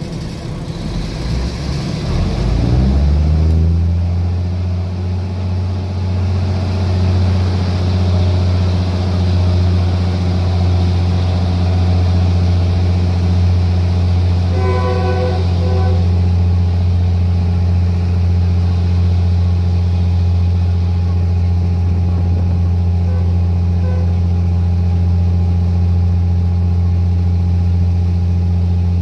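Diesel train's engine running up as the train pulls away, rising in pitch over the first few seconds and then settling into a loud, steady low drone. About halfway through, a short series of higher beeping notes sounds briefly.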